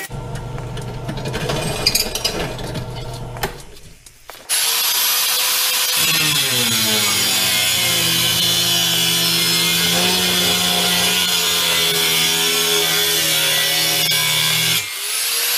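Bench drill press running for the first few seconds, then an angle grinder with a cutting wheel starts about four and a half seconds in and cuts a slot into a steel plate, dropping in pitch as the wheel bites in and then grinding steadily with a high whine. The cut scores the plate so it can be bent by hand, pausing briefly near the end.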